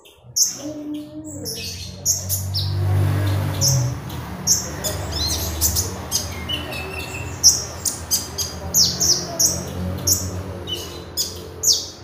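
A caged kolibri ninja sunbird singing in full, busy song: a rapid string of short, high-pitched chirps and twitters. A low rumble runs underneath for a few seconds, strongest in the first half.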